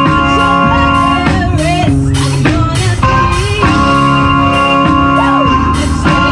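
A live band playing with sustained organ chords, electric guitar and a drum kit keeping a steady beat. A few short sliding notes come in about one and a half seconds in and again near five seconds.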